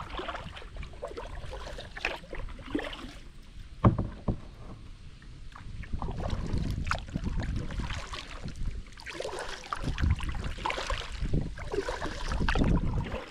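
Kayak paddling: a double-bladed paddle dipping and pulling through the water in uneven strokes, with splashing and dripping off the blades. A few sharp knocks come in among the strokes, the loudest about four seconds in.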